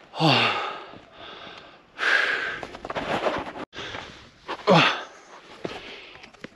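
A hiker breathing hard: a falling voiced sigh at the start, breathy exhales through the middle, and another falling sigh about five seconds in.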